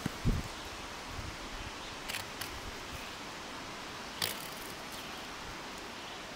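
Steady outdoor background hiss, with a low thump near the start and a few faint clicks about two and four seconds in.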